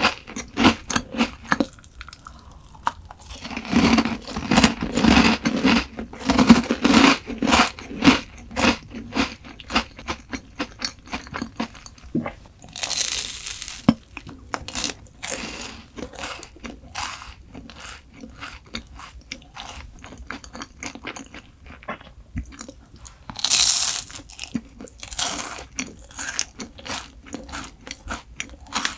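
Close-miked eating: repeated crunching bites and chewing of crisp food, in an irregular run of crackles. Two brief louder noisy crunches stand out partway through.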